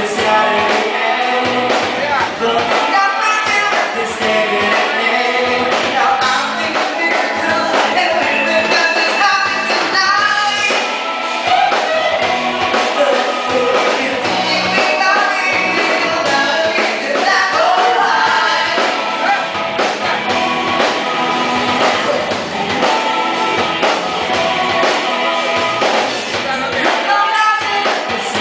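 A live band playing a song with singing, over drum kit, timbales and electric guitar.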